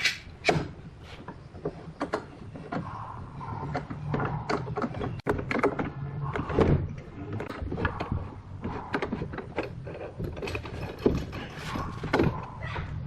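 Irregular knocks, clicks and rattles of wooden parts being handled and worked at the bench, over a low steady hum.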